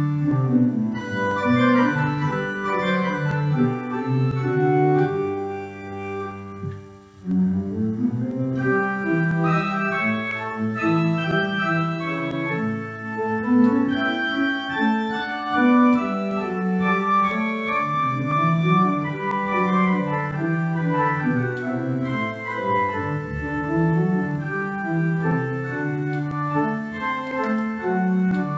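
Organ music: slow chords and a moving melody with notes held over one another, easing off briefly about six seconds in before going on.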